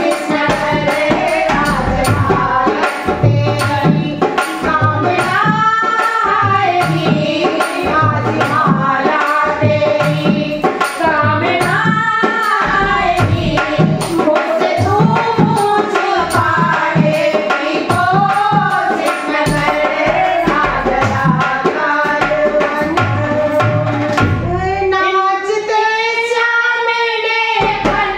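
Group of women singing a Hindi devotional bhajan in unison, with a hand drum keeping a steady beat and hand clapping. Near the end the drum stops while the voices hold one long note.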